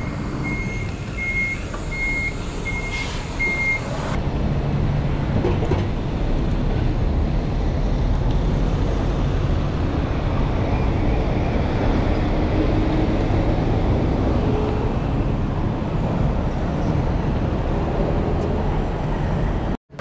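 Short high electronic beeps, about two a second, for the first four seconds, over a steady low rumble of road and wind noise. The sound cuts off abruptly just before the end.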